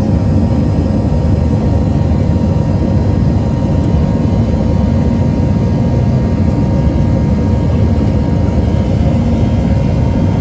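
Jet engines of a Boeing 737-700 (CFM56-7B turbofans) running steadily: a loud, even rumble with a faint steady whine over it, holding the same pitch and level throughout.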